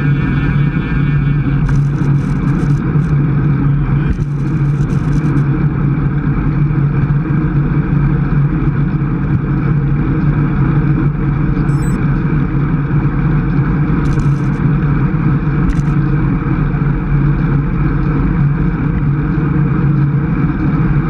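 Steady wind rush and rumble on a bicycle-mounted action camera's microphone while riding a road bike at about 23–24 mph, with a few short bursts of higher hiss.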